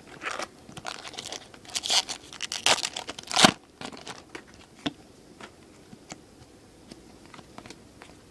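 A foil trading-card pack wrapper torn open and crinkled, with the loudest rip about three and a half seconds in, followed by a few faint clicks of the cards being handled.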